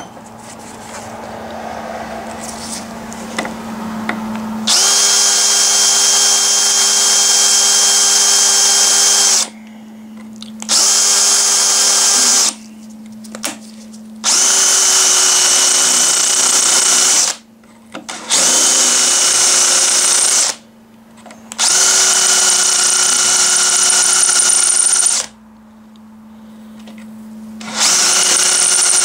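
Power drill boring out a silicone plug in the back of a car horn's metal housing. After a quieter first few seconds it runs in six loud spells of a steady whine, each a few seconds long, with short pauses between.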